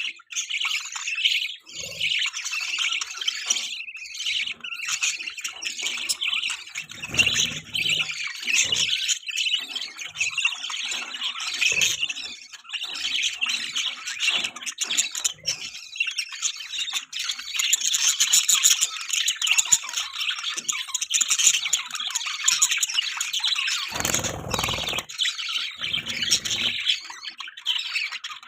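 Budgerigars chirping and chattering nonstop, a dense stream of rapid high squawks and warbles.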